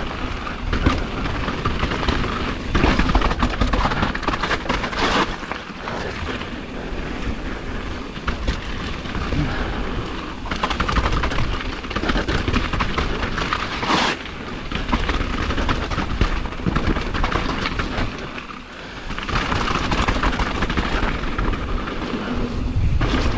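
Mountain bike descending a loose-gravel trail at speed: tyres crunching over stones, the bike knocking and rattling over bumps, and wind rumbling on the camera microphone, with a brief lull about three-quarters through.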